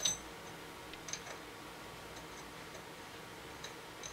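Light metal clicks and taps as a new nut is worked by hand onto the threads of a sink faucet valve body: one sharp click right at the start, then a few faint scattered ticks.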